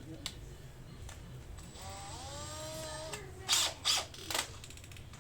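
Tool work on a motorcycle's plastic fairing: a short whirr that climbs in pitch and levels off, then three short loud rasps about half a second apart.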